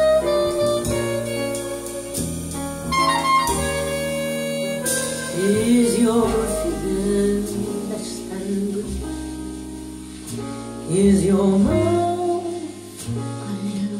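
Recorded music played back over a budget hi-fi stereo and picked up by a phone microphone in the room: an instrumental passage of held notes, then a singer's voice comes in about five seconds in, pauses briefly, and returns near the end.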